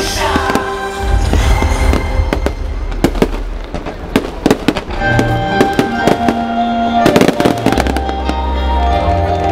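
Fireworks display going off: a rapid string of bangs and crackles, thickest in the middle and again about two-thirds of the way through, over loud music with steady held notes and heavy bass.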